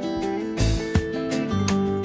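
Instrumental background music with held notes over a recurring beat.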